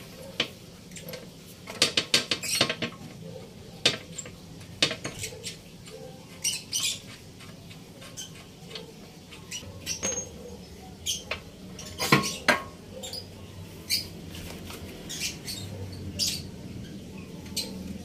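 Sharp metallic clinks and knocks as a Honda Click 125i's stock exhaust muffler is worked loose and lifted off the scooter, with a quick rattling run of them about two seconds in.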